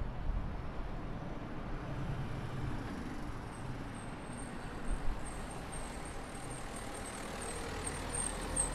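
Street ambience with the steady rumble of motor traffic. A thin high-pitched whine comes and goes from about four seconds in, and there is a brief knock about five seconds in.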